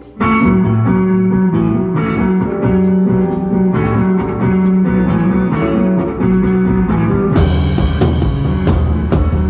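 Rock band playing live: electric guitars and bass guitar with a drum kit. A cymbal ticks about twice a second from about two seconds in, and the full band comes in harder with a crash about seven seconds in.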